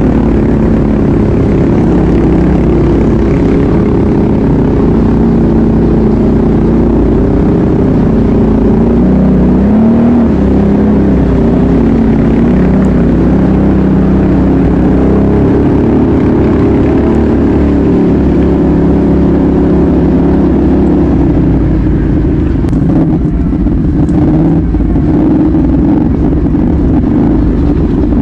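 ATV engine running under way, its pitch rising and falling steadily with the throttle, with a few sharp clicks in the second half.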